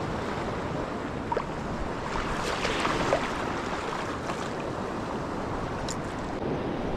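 Surf washing on the beach and reef, a steady rush of water that swells about two to three seconds in.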